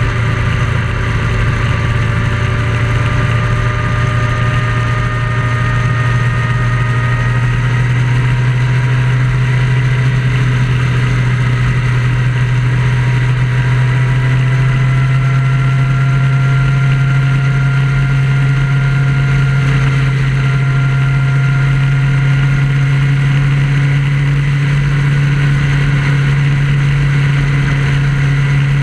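Vehicle engine running at steady cruising speed on a highway, a strong low hum whose pitch creeps slightly upward, with steady road noise.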